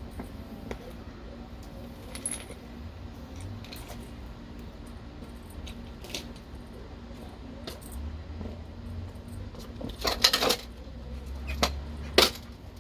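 Scattered small metallic clinks and rattles, with a short burst of louder clatter about ten seconds in and a sharp clink near the end, over a low steady rumble.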